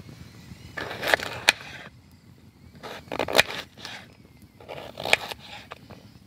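Knife cutting potato on a chopping board: three bursts of slicing and scraping, each with sharp knocks of the blade on the board.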